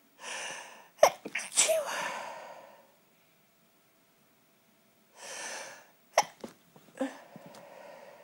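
A person sneezing in a fit: a hissing in-breath, then a sharp sneeze about a second in, and after a short quiet the same again, an in-breath and a sneeze about six to seven seconds in.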